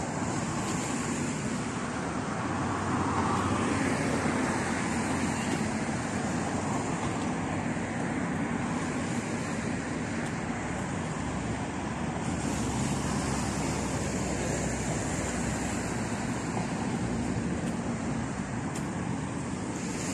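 Road traffic passing on the seafront road, a steady wash of cars with one swelling louder about three seconds in.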